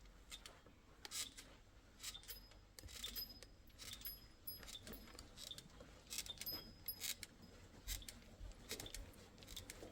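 Faint, irregular light clicks and clinks of small hard objects being handled, some with a short high ring.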